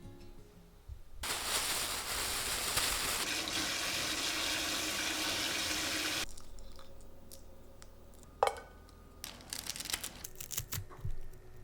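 Water running from a tap for about five seconds, then shut off, followed by a few light clicks and knocks.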